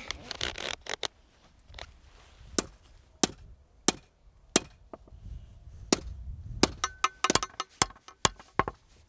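Hammer blows: sharp single knocks about two-thirds of a second apart, then a faster run of taps near the end.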